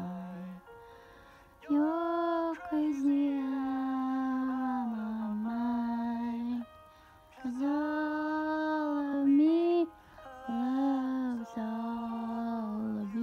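A woman singing a slow song in phrases of long held notes with short breaks between them, over faint accompaniment.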